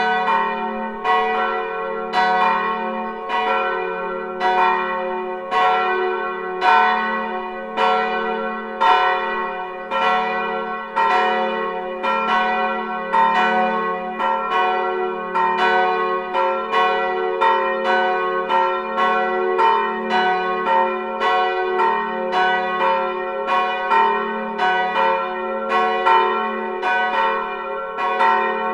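Full peal of swinging church bells, tuned F-sharp and A-sharp plus a third bell, striking in an overlapping pattern about twice a second, with a low hum carrying on between strokes.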